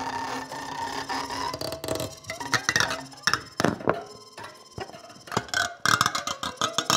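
A bow drawn across found objects on a tabletop sounds a steady, pitched drone for about two seconds. It then gives way to irregular scrapes, clicks and short squeaking glides from objects being bowed and handled.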